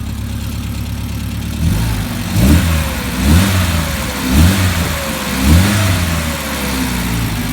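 Triumph Spitfire 1500 four-cylinder engine breathing through twin pancake air filters, idling steadily, then blipped four times about a second apart, each rev rising and falling back to idle.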